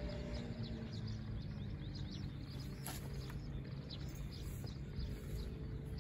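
Small birds chirping busily over a steady low rumble of outdoor background noise, with a couple of sharp clicks about three seconds in.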